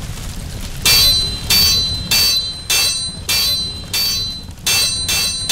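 Blacksmith's hammer striking metal on an anvil in an even rhythm, about eight blows a little under two a second, starting about a second in. Each blow rings with a bright metallic tone.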